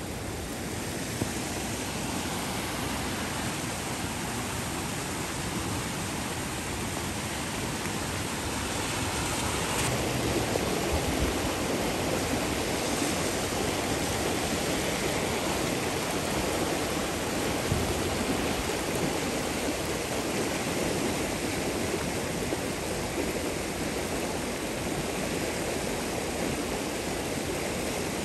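Rushing floodwater of a flash flood running down a desert wash: a steady, even noise that swells a little about ten seconds in.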